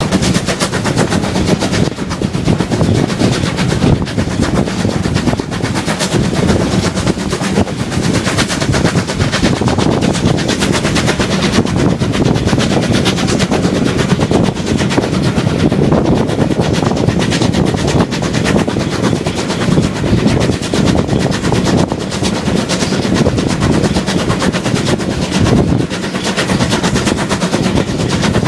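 Steam-hauled train running, heard from an open carriage window: a loud, rapid, uneven clatter of exhaust beats, wheels on the rails and wind buffeting the microphone.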